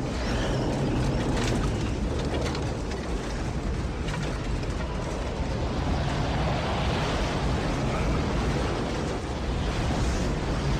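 Simulated tornado wind: a dense, steady rush of wind noise with a heavy low rumble.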